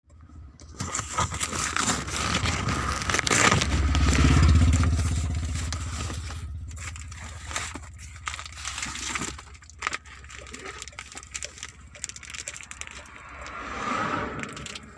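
Crackling, scraping and clicking of a camera box and its packaging being handled, with a low rumble that swells about four seconds in and fades away.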